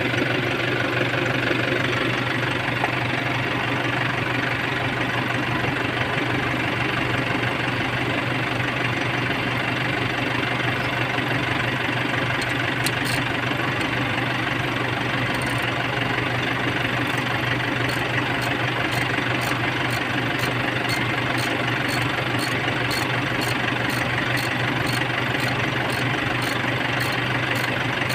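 Kia Sportage CRDi four-cylinder common-rail diesel idling steadily with the bonnet open. From about halfway through, a light ticking comes in at about two ticks a second.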